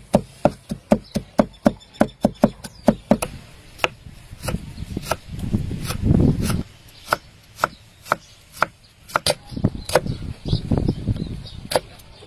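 Kitchen knife chopping garlic on a wooden chopping board: quick, even strikes about four a second for the first three seconds, then slower, irregular cuts through an onion and red chillies. Two louder low rumbles come in the middle and again about ten seconds in.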